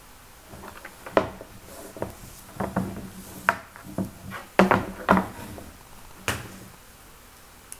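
Climbing rope being handled as a double figure-eight knot is worked loose and pulled apart: irregular rustles, swishes and light knocks of rope against a wooden surface.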